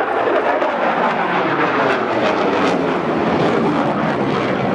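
F-16 fighter jet's turbofan engine, heard from the ground as the jet climbs: a loud, steady rush of jet noise whose pitch slowly falls.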